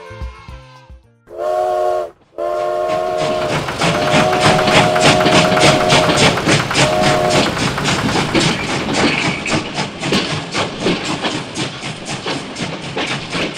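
Steam train sound effect: a chord-like steam whistle blows four times, the third blast held for about two seconds, over a steady chugging clatter of about five beats a second. Background music fades out just before the first whistle.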